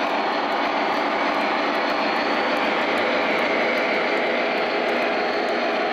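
O scale model train running along its track, heard from a car riding in the train: a steady rolling noise from the wheels and motor with faint, evenly spaced ticks.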